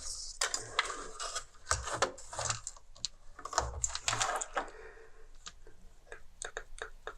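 Irregular light clicks and clatter of plastic parts and circuit boards being handled during disassembly, with a few duller knocks.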